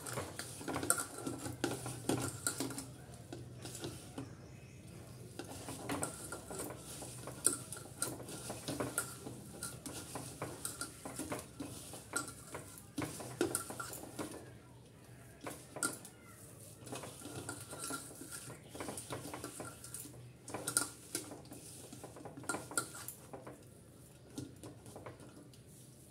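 Hands kneading and mixing chopped greens into a gram-flour spice mix in a stainless steel bowl: irregular squishing and rustling with frequent metallic clinks and scrapes against the bowl.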